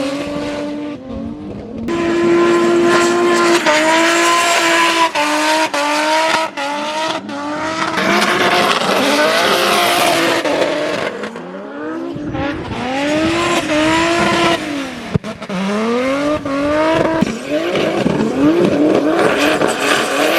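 A drift car's engine revs up and drops again and again as the car slides, with tyre squeal and a few sharp cracks mixed in.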